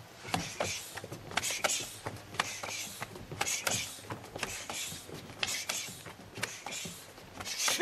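Quick, irregular slaps and snaps of blocks and strikes between two karateka sparring at close range, with rustling of their cotton gi.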